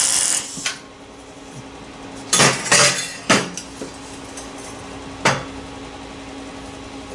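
A MIG welder's arc crackling and hissing through the end of a short tack weld on a stainless exhaust pipe, stopping within the first second. Then the stainless pipe clanks several times against the steel workbench as it is lifted and set down, with one more clank about five seconds in.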